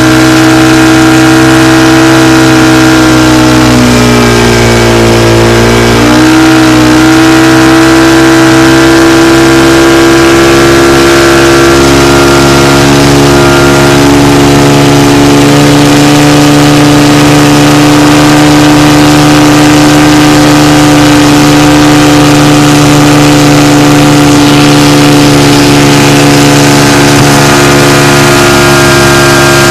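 Motorboat engine running hard at a steady pitch, the pitch dropping about four seconds in and climbing back a couple of seconds later as the throttle is eased and opened again.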